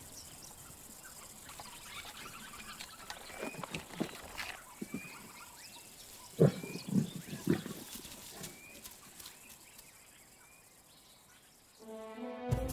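A big cat giving a run of short low grunts, about two a second, over a quiet bush background with a few birds chirping; music comes in near the end.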